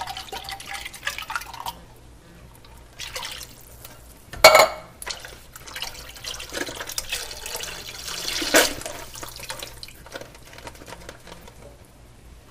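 Water running and pouring as emptied tomato cans are rinsed out, with two sharp knocks, the louder about four and a half seconds in.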